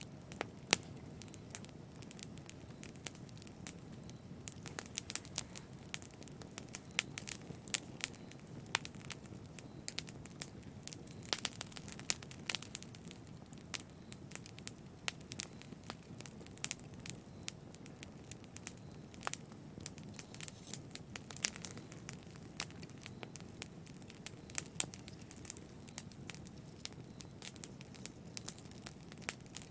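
Fire in a fireplace crackling: frequent, irregular sharp pops and snaps over a soft steady rush of flame.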